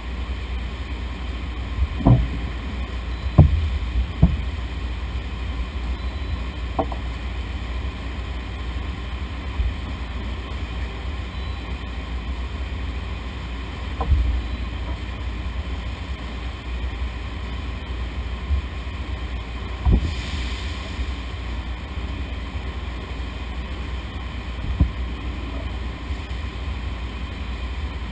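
Steady low drone of potato processing-line machinery, with a few short knocks as potatoes and debris are handled in a wooden bin.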